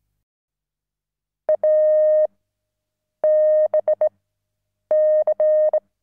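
Steady electronic beep tone, starting about a second and a half in, keyed on and off in groups of long and short beeps.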